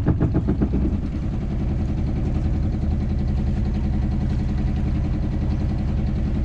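Small outboard motor on a sailboat's transom running steadily, a little louder and choppier in the first second.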